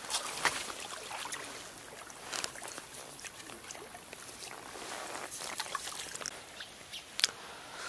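Faint riverbank ambience: water lapping against the bank, with scattered small clicks and rustles from handling fishing tackle.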